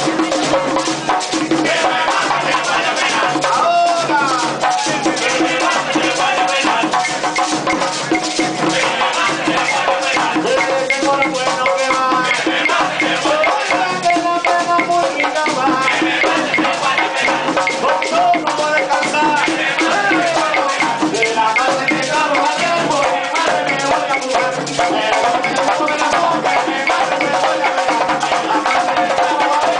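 Live Puerto Rican plena: several panderetas (hand frame drums) beating a fast, steady rhythm together while voices sing the verses and choruses over them.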